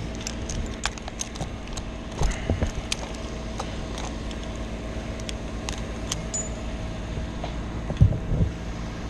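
Light metallic clicks and clinks of climbing and rigging hardware as the climber handles his gear, over the steady hum of an engine running. Two low thumps come near the end.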